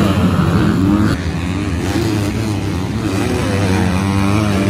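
Motocross dirt bike engines revving hard through the mud, their pitch rising and falling as the throttle is worked. The sound changes abruptly about a second in.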